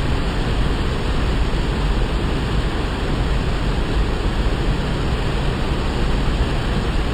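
Waterfall, rushing water pouring steadily with a deep, even roar that does not change.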